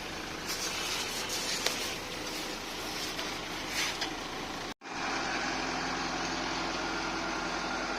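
Tractor engine running on the self-loading pan concrete mixer, with a few clatters over a noisy rumble in the first half. The sound drops out for an instant just before five seconds in, then the engine runs on at an even pitch.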